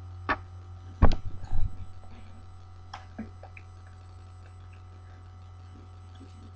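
Steady low hum with a sharp knock, then a quick run of loud low thumps about a second in, and two fainter knocks around three seconds in.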